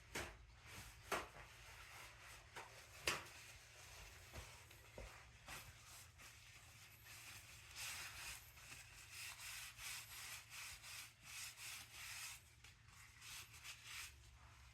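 Faint rubbing, with a few light knocks in the first three seconds and a longer stretch of hissy rubbing in the middle.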